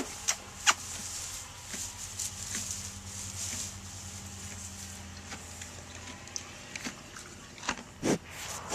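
Thoroughbred mare making her funny, low, drawn-out noise for a few seconds. A couple of sharp clicks come at the start and a short louder sound near the end.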